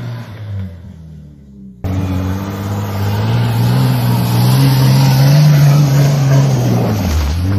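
Volkswagen Amarok pickup engine revving hard under load in deep snow, with tyres churning snow close by. The engine note rises and holds, dipping briefly near the end. For the first two seconds a quieter engine note falls away before the louder engine cuts in.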